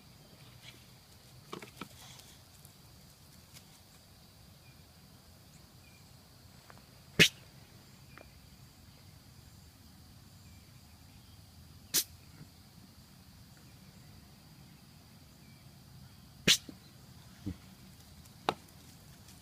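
A pet sneezing in a fit of sneezes: four sharp, short sneezes a few seconds apart, with a few fainter sounds in between.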